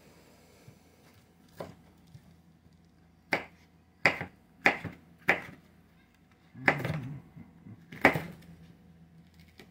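A kitchen knife chopping bell pepper on a plastic cutting board: about seven sharp knocks of the blade hitting the board at an uneven pace, with short pauses between cuts. The cook calls it a bad knife for the job, preferring a serrated edge.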